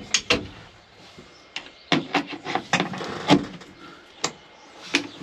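Hand pop-rivet pliers being worked on a blind rivet: sharp metallic clicks as the handles are squeezed and released. There are three near the start, a quick run of them in the middle with the loudest about three seconds in, then two more single clicks.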